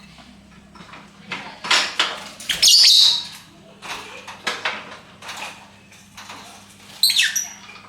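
Lovebirds calling: a scatter of short, sharp chirps and squawks, with a louder shrill call about three seconds in and a quick downward-sweeping chirp near the end.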